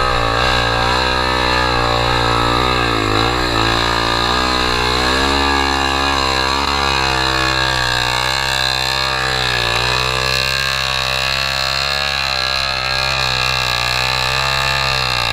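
Honda XR 250 Tornado's single-cylinder four-stroke engine running under way on a dirt trail, its revs rising and falling. The revs swing most in the first few seconds, then settle to a steadier, gently wavering note.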